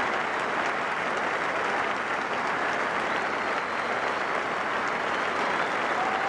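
A large stadium crowd applauding, a dense steady clatter of many hands clapping. A single held tone comes in right at the end.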